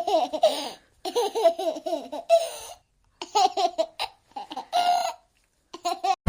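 A baby laughing in several bursts of quick, rhythmic chuckles with short pauses between them.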